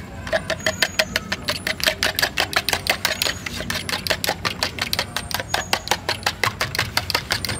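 A fork beating raw egg and spice mixture in a plastic jug, clicking against the sides in a rapid, even rhythm of several strokes a second. The beating stops at the very end.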